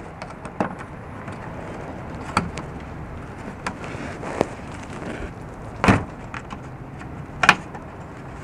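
Scattered knocks and clicks of a car's plastic engine undercover being pushed and shifted by hand to line it up, with two louder knocks in the second half.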